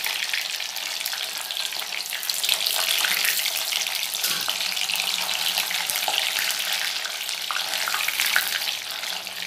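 Paneer cubes deep-frying in hot oil in a kadai: a steady, crackling sizzle.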